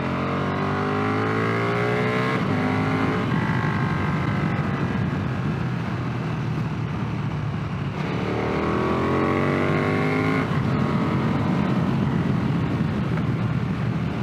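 Motorcycle engine heard from the bike, accelerating with a rising pitch and then dropping sharply at an upshift, twice: once in the first couple of seconds and again about eight seconds in. Wind rush runs underneath.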